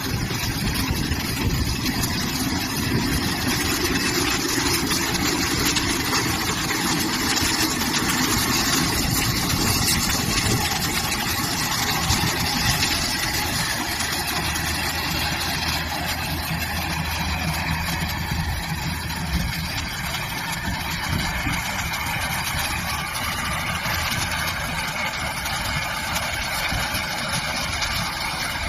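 Wheat straw baler at work, its engine and mechanism running steadily without a break.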